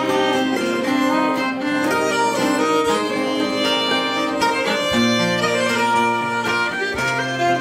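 Acoustic folk band playing an instrumental passage: a bowed fiddle melody over a strummed guitar and mandolin.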